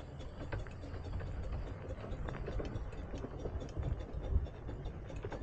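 12¼-inch gauge miniature steam train running along the track with a rapid, uneven clicking of its wheels and running gear over a low rumble, fading as it draws away.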